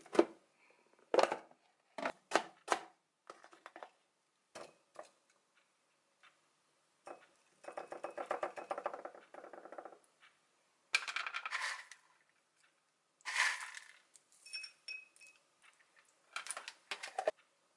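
Kitchen handling sounds: plastic food-storage container lids clicking and knocking, a spoon scooping and scraping Greek yogurt onto fruit in a glass dessert cup, then more sharp clicks and short rattles near the end.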